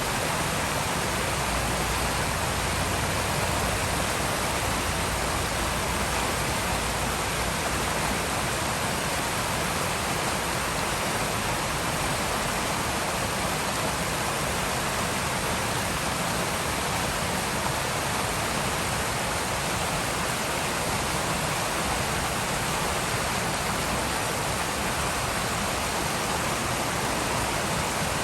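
Forest river flowing, a steady, unbroken rush of water.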